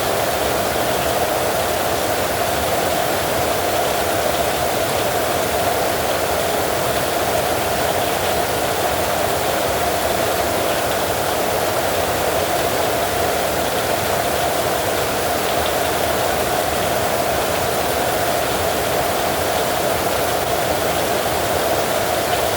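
Heavy rain falling steadily, an even hiss with no thunderclaps.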